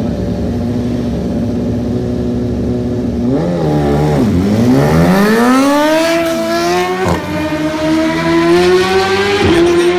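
A drag-racing engine held at steady revs on the start line, then launching and accelerating away in a long rising pitch, with a short break in the rise about seven seconds in.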